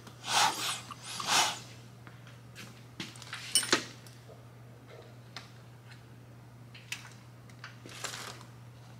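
Hand work at an open motorcycle cam chest: two soft scuffing rustles in the first second and a half, then scattered light metallic clicks, the loudest a clack about three and a half seconds in, over a faint steady low hum.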